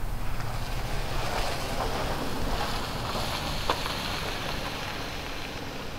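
Steady outdoor ambient wash, with one faint tick about three and a half seconds in.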